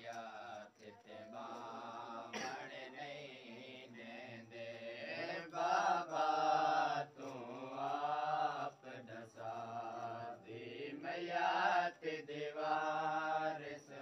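A man's voice chanting a noha, a Shia lament, in long drawn-out melodic phrases that rise and fall, with the loudest phrases past the middle and near the end.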